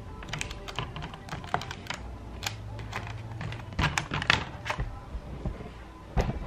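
Small plastic clicks and taps from handling a Lenovo G400 laptop keyboard: its ribbon-cable connector clip is flipped open and the loose keyboard's keys clatter as it is moved. The clicks come scattered, bunch together about four seconds in, and a louder knock comes near the end.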